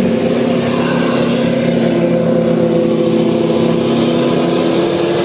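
Basuri telolet horn on a bus sounding a loud held chord of several notes. The notes shift about two seconds in and again near the end.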